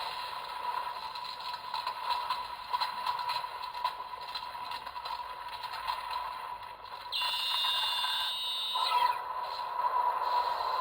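Plastic clicking and scraping as a PDX Zein Driver toy transformation belt is handled to switch its form. About seven seconds in, the belt gives a short electronic tone of several pitches lasting nearly two seconds, sliding down as it stops.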